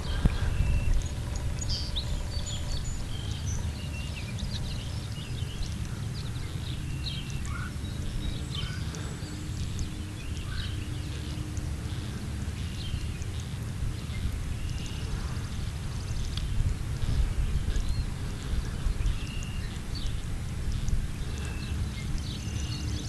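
Outdoor ambience: a steady low rumble with many short, faint clicks and brief high chirps scattered throughout.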